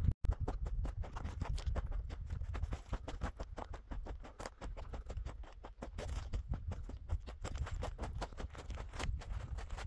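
Footsteps crunching over loose gravel and rock: a dense, irregular run of crunches, several a second, over a steady low rumble.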